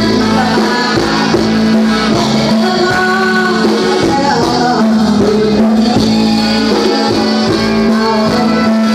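Loud live band music from a Thai concert stage show, played through a large PA sound system, with a steady held low note sounding under much of it.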